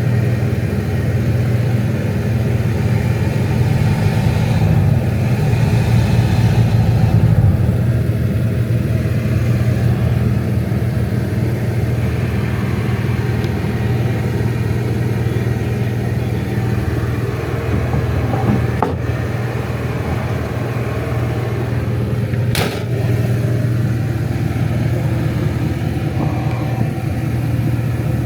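An engine running steadily, with a low hum, getting louder for a few seconds about five seconds in. Two sharp clicks or knocks come near the end.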